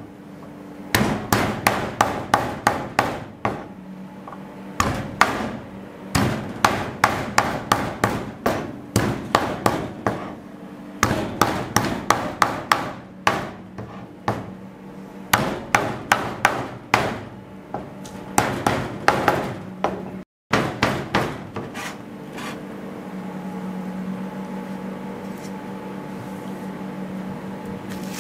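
Aluminium pounder crushing garlic cloves on a plastic cutting board: quick sharp strikes in bursts of several at a time. The pounding stops about 21 s in, leaving a steady low hum.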